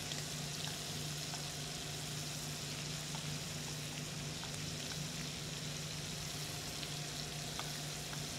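Shrimp frying in butter and canola oil in a stainless steel sauté pan, a steady sizzle, with a few light clicks of the tongs against the pan and a steady low hum underneath.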